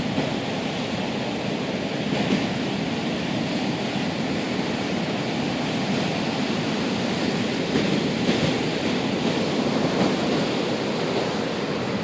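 Surf breaking and washing in strong wind: a steady, even rush of waves.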